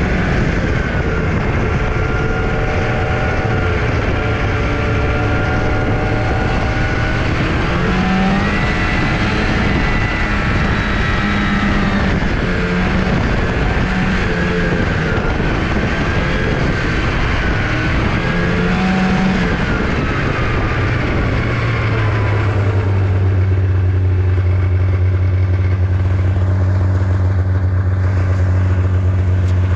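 Fan-cooled 440 two-stroke snowmobile engine under way, its pitch rising and falling with the throttle over a rushing noise. From about two-thirds of the way through it holds a steady low pitch.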